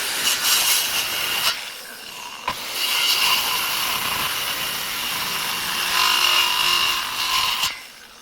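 Wood being cut with a power tool, most likely a power saw: a steady, whining, noisy cut. It eases off briefly about two seconds in, runs again, and stops near the end.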